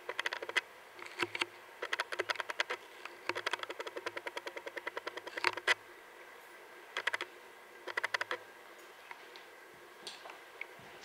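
Bursts of rapid clicking, about ten clicks a second, in several groups of a second or so each, stopping a little after halfway, with a few separate ticks near the end.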